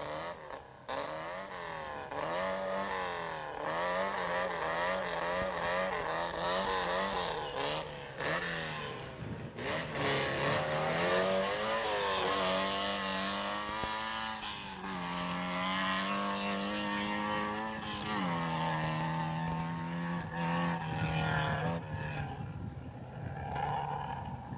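Racing engine running at high revs, its pitch wavering up and down about twice a second, then climbing, holding steady and dropping a step.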